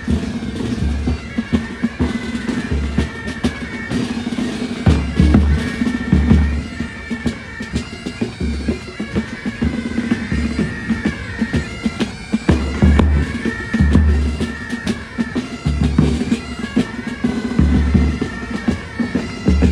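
Military pipe band playing: bagpipes sound a melody over their steady drone, with rapid snare drumming and a regular bass-drum beat.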